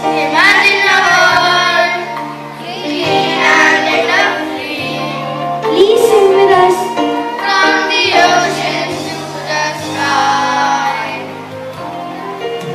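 Children singing a song with instrumental accompaniment, in phrases with short breaks between them.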